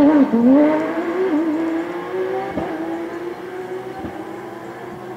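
Rally car engine pulling away, its pitch dipping and jumping sharply at the start with gear changes, then holding steady as it fades.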